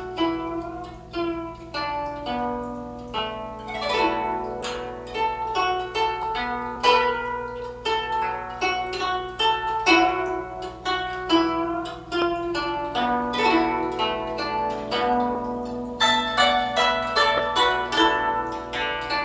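Guzheng (Chinese zither) playing a melody in a steady stream of plucked notes, each ringing and dying away.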